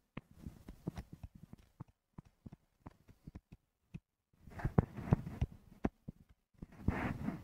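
Stylus writing on a pen tablet: a run of small irregular clicks and taps, with two louder, scratchier stretches in the second half as letters are drawn.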